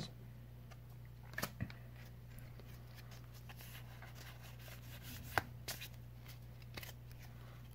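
Faint handling of Pokémon trading cards: a few soft clicks and flicks as the cards are slid through the hands, over a steady low hum.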